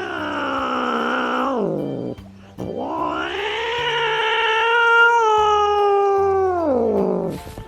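Domestic cat yowling: two long, drawn-out yowls. The second is much longer, rising and then held before it slides down in pitch at the end.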